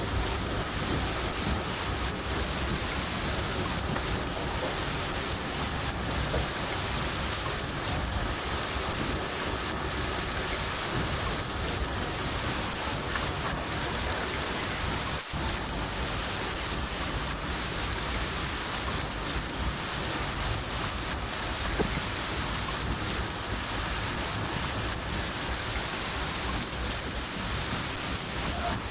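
A cricket chirping in a steady rhythm, about three chirps a second, over the even hiss of rain, with a low rumble of thunder underneath.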